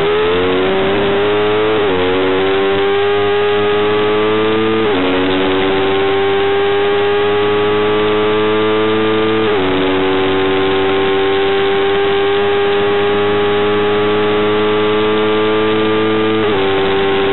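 Racing motorcycle engine heard from an onboard camera, pulling hard under acceleration: its pitch climbs slowly and drops sharply at each of four upshifts, about two, five, ten and sixteen and a half seconds in.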